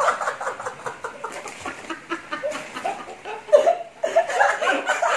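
Men laughing and snickering, one laughing through a mouthful of food.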